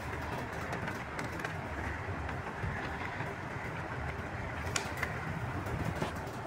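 Steady background noise, a low rumble with hiss, broken by a few sharp clicks about five seconds in.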